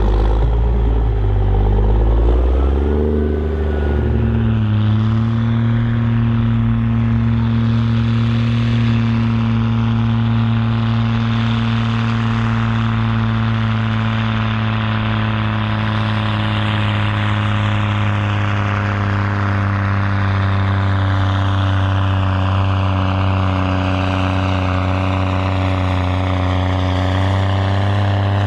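Pulling tractor's engine at full throttle through a pull: the revs climb over the first few seconds, then hold at a steady high pitch, sagging slightly toward the end as it works against the weight sled.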